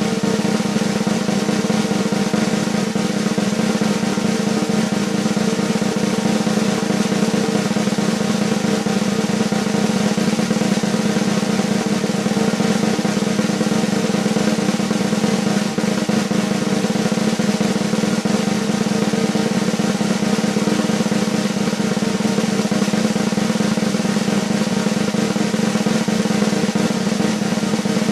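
Long, steady snare drum roll, sustained without a break, the suspense roll played before an announcement of results.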